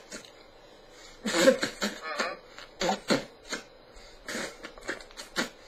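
A man's unintelligible mumbling in short broken bursts, no words to be made out.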